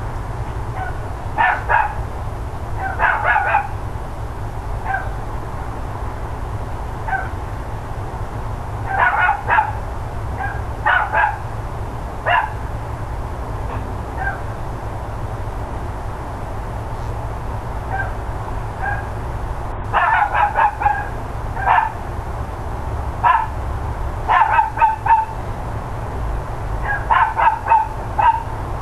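Dogs barking in short bouts of several quick barks each, breaking off for a few seconds between bouts, over a steady low background rumble.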